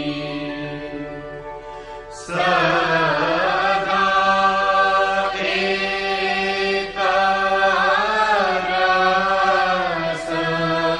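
Devotional chanting of a guru vandana, a hymn in praise of the guru: long sung phrases with sliding pitch over a steady low drone, a new phrase starting every few seconds.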